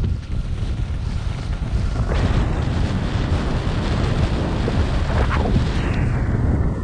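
Wind buffeting a GoPro microphone while riding down a groomed ski slope, with the hiss of edges scraping over the snow. The scraping grows louder from about two seconds in and swells briefly twice, as in turns.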